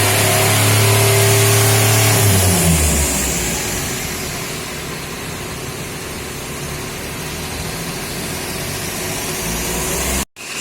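A motor vehicle's engine running, its steady hum dropping in pitch about two and a half seconds in, then settling into an even, noisy rumble.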